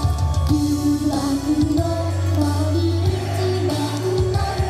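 Upbeat Japanese idol pop song with female vocals, played loud over the stage's PA speakers.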